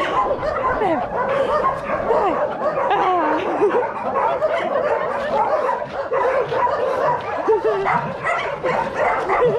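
Many dogs barking, yipping and whining over one another, with continuous overlapping calls that rise and fall in pitch.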